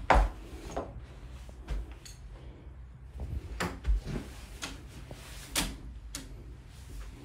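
Irregular taps and knocks, about ten of them, from a long white cane and footsteps while someone walks through a small room, with low thumps under them.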